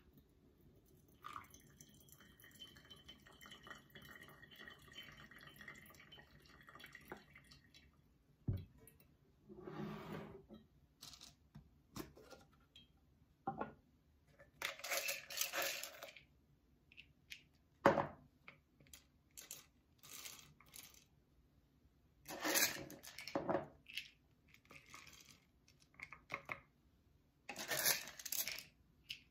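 A thin stream of water pours from a gooseneck kettle into a paper-filter coffee dripper for several seconds. Then comes handling of a metal coffee canister: knocks and clinks, and short rattling bursts as coffee beans are scooped from it.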